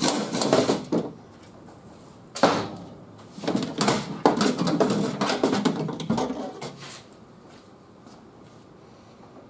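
Metal window track being worked loose and pulled out of a stripped car door shell: a sharp knock about two and a half seconds in, then a few seconds of rattling and scraping of metal against the door.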